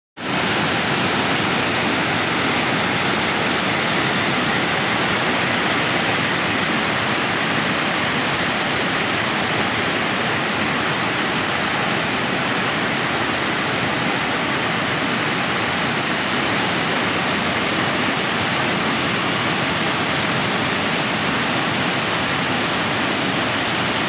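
Waterfall cascading over rock slabs: a steady, loud rush of white water with no change in level.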